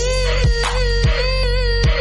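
Electronic music: a held synth note over a deep bass and a beat.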